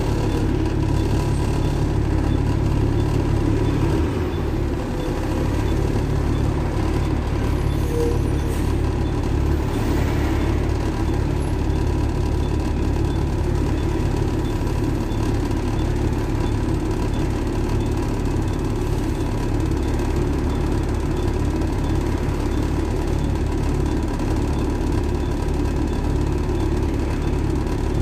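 Diesel engine of a Volvo B7TL double-decker bus heard from inside the passenger saloon, running steadily as a low drone with a thin steady whine above it.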